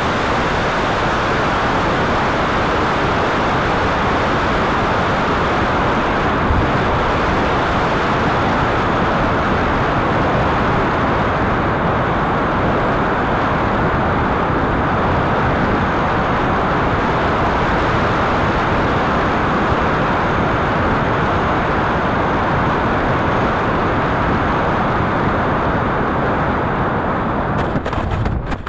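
Steady, loud rushing of airflow and a 70mm electric ducted fan, picked up by the camera inside the canopy of a radio-controlled jet in flight. Near the end it fades away with a few short knocks as the plane lands on grass.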